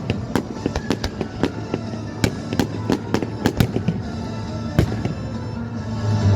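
Fireworks going off in rapid cracks and bangs, dense for the first few seconds and then thinning to an occasional bang about five seconds in, over loud show music.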